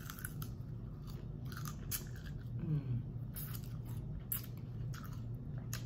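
Close-up biting and chewing of crispy fried lemon pepper chicken wings, with many short, sharp crunches scattered throughout.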